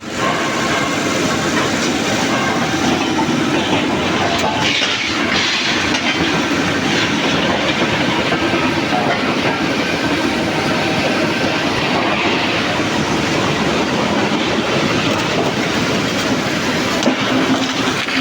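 Loud, steady machinery noise in a steel rolling mill by a reheating furnace, with a dense rattling rumble and hiss and no pauses.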